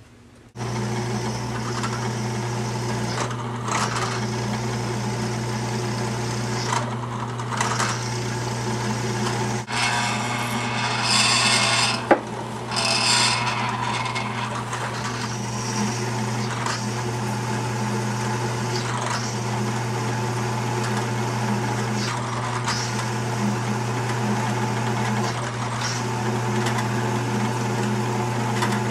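Drill press motor starting and running steadily while a sharp 3/8-inch bit drills into 1/4-inch cold-rolled steel flat bar. A scratchy cutting noise comes and goes over the motor hum as the bit is fed, loudest around the middle.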